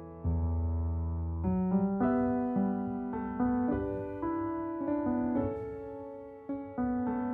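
Background piano music: slow sustained chords, a new chord or note struck every half second to a second and left to ring.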